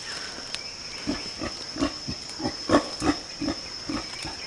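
A gorilla grunting in a steady rhythm, about three short grunts a second, starting about a second in, with a faint steady high-pitched whine underneath.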